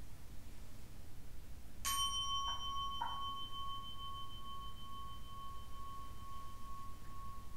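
A Buddhist bowl bell struck once, ringing on in a clear, steady tone that fades slowly. It marks a bow in the Zen service. Two faint, brief softer sounds follow within the next second.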